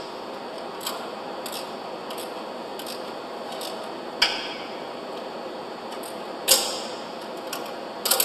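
Metal hand tools clicking and clinking on steel bolts as a concrete pump's piston cup is being tightened down. Scattered light clicks, with two louder ringing clinks about four and six and a half seconds in and a quick cluster of clicks at the end, over a steady background hiss.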